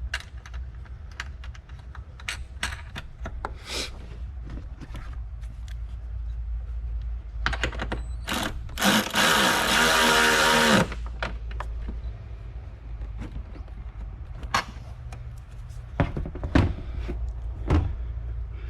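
Hand ratchet and 10mm socket clicking as a nut is run down onto a stud, with scattered clicks and knocks of parts being handled. A loud, noisy whirring burst of about two seconds comes a little before halfway, over a steady low hum.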